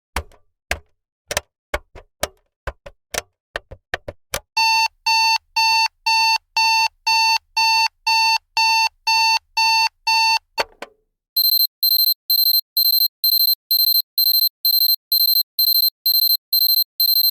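Alarm clock sound effect: uneven ticking, then about four and a half seconds in an electronic alarm beeping about twice a second in a lower tone. After a single click near the middle, a higher-pitched beep starts, about three a second.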